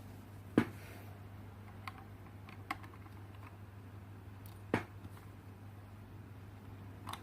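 Handling clicks and knocks as a USB cable is plugged into the USB charging adapter and the portable speaker: a few sharp clicks, two louder ones about half a second in and near five seconds in, over a steady low hum.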